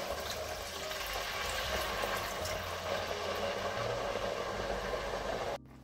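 Vegetable broth going into a hot frying pan of sofrito and toasted rice: a steady watery hiss of liquid pouring and bubbling, which cuts off abruptly near the end.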